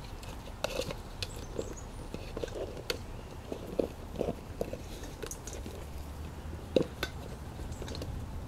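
An empty plastic container being bitten, chewed and knocked about by seven-week-old puppies: scattered irregular clicks, taps and scrapes, with a sharper knock about seven seconds in.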